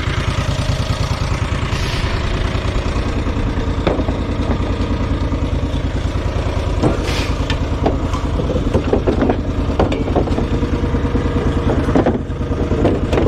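A vehicle engine running steadily at a low, even rumble, with scattered clattering and knocks over it.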